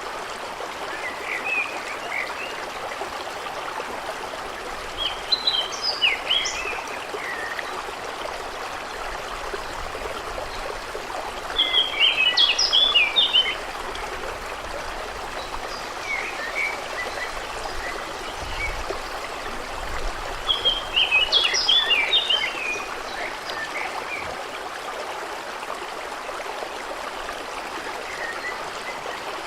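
A stream running steadily, with a songbird singing three short bursts of rapid chirping notes, about ten seconds apart, and a few fainter chirps between.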